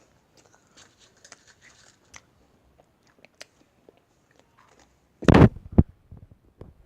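Crisp meringue cookies crunching as they are bitten and chewed: faint crackles at first, then a loud crunch a little past five seconds in, followed by one short sharp crack.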